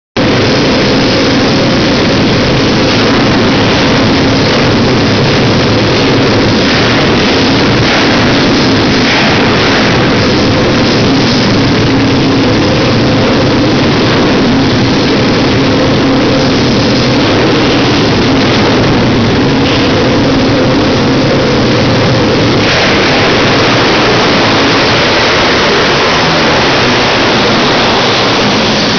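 Several pit bike engines revving as the bikes race round a track. Their notes rise and fall over one another in a loud, continuous sound.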